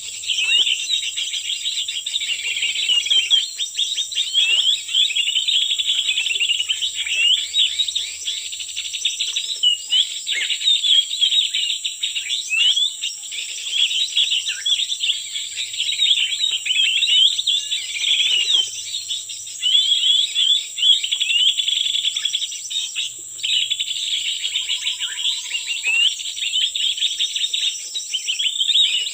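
Dense, rapid chirping and twittering of small birds, many short calls overlapping, over a steady high-pitched insect buzz.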